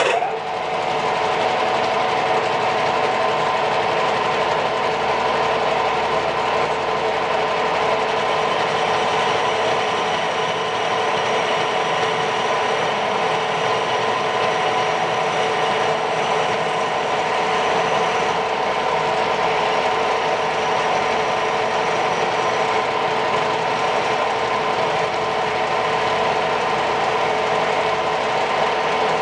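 Repaired VSN R-20 bench drill press switched on and running steadily, its electric motor and spindle drive giving a constant mechanical whirr with a few steady tones.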